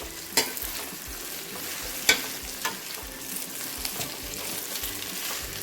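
Hot oil sizzling in a pan as pieces of steamed muthiya dhokla are stirred and tossed in a mustard-seed tempering, with a few sharp clicks of the spoon against the pan, the loudest about two seconds in.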